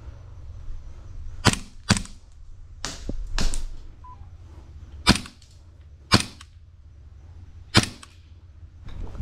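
Airsoft gunfire: about seven single sharp cracks, irregularly spaced, with a pause in the middle, over a steady low rumble.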